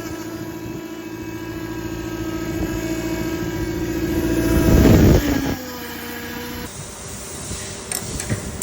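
Car engine running with a steady tone that grows louder for about five seconds, then drops off suddenly to a quieter, steadier hum.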